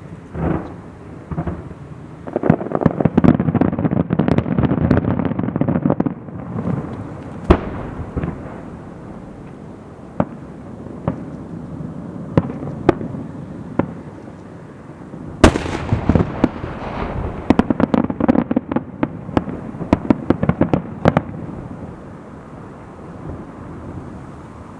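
Aerial fireworks bursting in two rapid volleys of many crackling bangs, with single louder booms and scattered reports between them.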